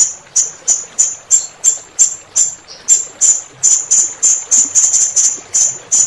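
Blue-crowned hanging parrot (serindit) calling a fast string of short, sharp, high-pitched notes, about three a second, over a steady background of running water.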